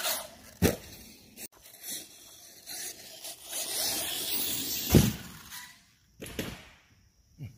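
Arrma Talion RC car with a 1700 kV brushless motor on 4S, driving. Gliding motor whine and tyre hiss are broken by several sharp thumps, the loudest about five seconds in.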